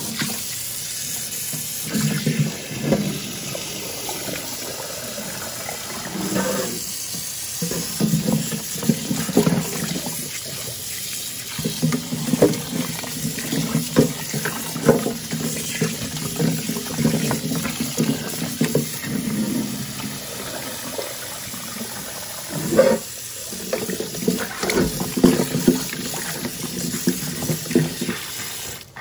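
Kitchen tap running into a stainless steel bowl while hands rub and turn pieces of parboiled beef trotter in the water, with irregular sloshing and knocking. The trotters are being rinsed after their first boil.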